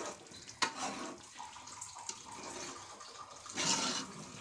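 Water poured from a glass into a pot of chicken and potato curry, splashing into the gravy. There is a sharp knock about half a second in, and the loudest splash comes near the end.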